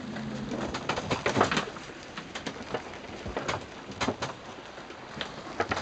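Rain and sea spray striking the cabin window and deck of a sailing yacht in a storm, heard from inside the cabin as an irregular patter of sharp hits and splashes, with a low hum in the first second.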